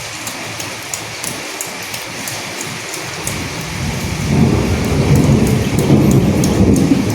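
Steady rain falling, a constant hiss with many separate drops ticking on a surface. About halfway through a deep rumble swells up beneath it and stays loud.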